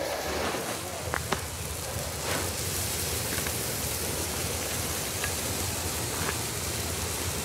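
Two red ground flares burning with a steady hiss, with two faint pops a little after one second in.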